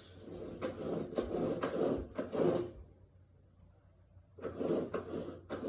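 Wheel of a Toro Personal Pace all-wheel-drive mower being turned, a stiff dragging, rubbing noise in two goes. The wheel is still grabbing somewhere, which the owner thinks could be the drive belt.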